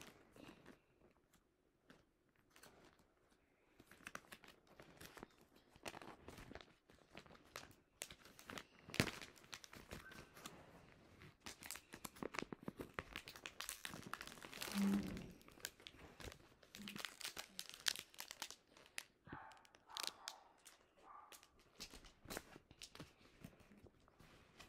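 Clear plastic packaging bag crinkling and crackling in irregular handfuls as it is handled. It is sparse at first and busier from about four seconds in.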